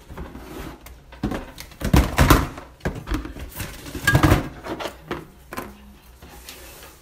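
Rustling and knocking from a handheld phone being moved about, with loud bursts about two seconds and four seconds in.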